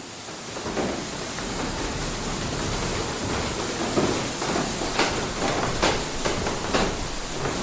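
Inside a water mill: a steady rush of falling water, fading up at the start, with sharp knocks from the mill's workings about once a second in the second half.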